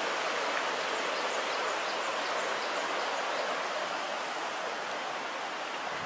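Mountain stream, running full after the previous day's rain, rushing steadily over boulders and small cascades.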